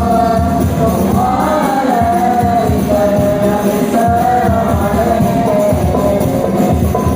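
A child's high voice singing a sholawat, a devotional Islamic song in praise of the Prophet, in long held, ornamented notes over steady hand-percussion accompaniment.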